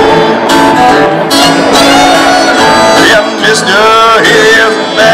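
A fiddle and an acoustic guitar playing a tune together live through a PA, with sliding melody notes over the strummed guitar.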